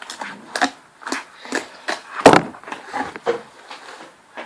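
Slime being squished and slapped by hand, a quick series of short wet clicks and pops, the loudest a little past two seconds in.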